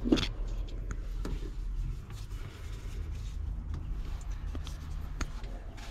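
Handling noise: a knock just after the start, then a few light clicks and rustles over a steady low rumble.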